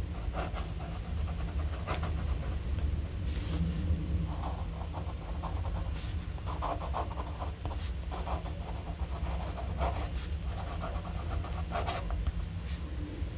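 BIC fountain pen's medium nib writing in cursive on paper, short stroke sounds coming and going, over a steady low hum.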